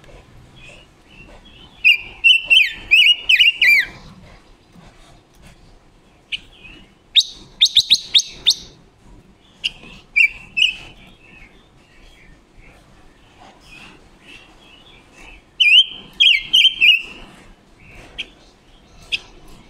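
Caged silver-eared mesia singing: several loud bursts of quick, sliding whistled notes, one a rapid run of high notes, with single sharp chirps between the bursts.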